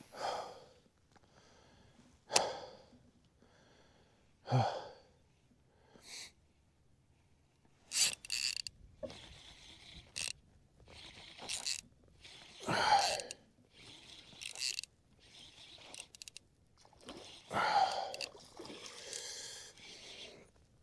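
A man breathing hard, with loud gasping breaths every couple of seconds as he catches his breath, worn out from landing a fish and hauling out of a shallow muddy creek. A few light clicks fall between the breaths.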